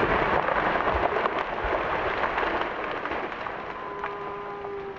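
Wildfire burning through forest fuels: dense crackling and popping that gradually fades. Faint steady tones come in near the end.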